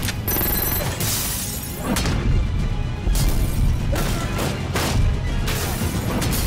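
Action-trailer music over a heavy low bass, punctuated by a string of crashing hits and booms, about one a second.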